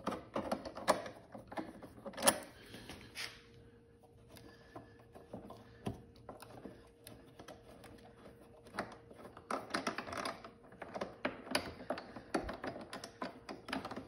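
A lawnmower's handle clamp knob being unscrewed by hand: irregular clicks and rattles of the knob and the handle fittings, with one sharp click about two seconds in and busier clicking toward the end. A faint steady hum joins about three and a half seconds in.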